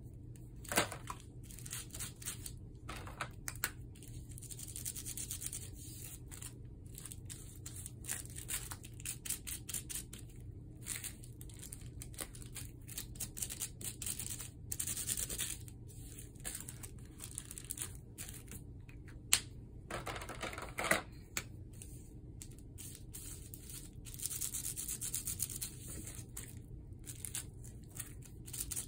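Felt-tip marker being scrubbed back and forth over a piece of bubble wrap, a rasping rub in stretches of a few seconds, with crinkling of the plastic and small clicks between. A louder crinkle about twenty seconds in.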